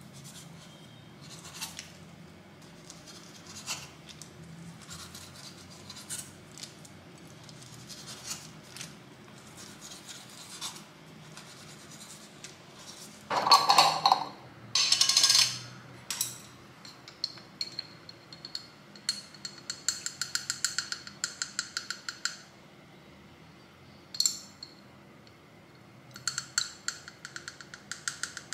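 Kitchen handling sounds: a knife cutting sun-dried tomatoes on a board with scattered light taps, then two loud short scraping bursts about halfway as the metal lid of a glass jar is twisted open. After that come runs of quick fine clicks as chopsticks knock against the glass jar while picking out pickled peppers.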